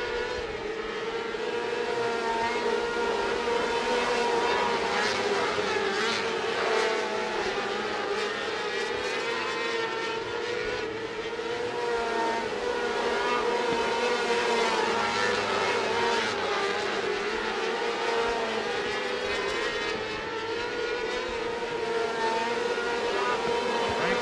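Several micro sprint cars with 600cc multi-cylinder motorcycle engines racing on a dirt oval. Their high-revving engine notes overlap, rising and falling in pitch as the cars lap.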